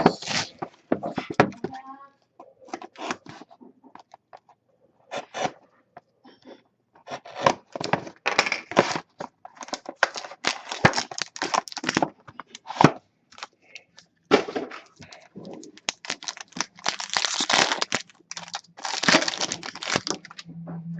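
Plastic wrap tearing and crinkling as a sealed hockey trading-card box is opened, with cardboard and cards being handled in many short, irregular crackles.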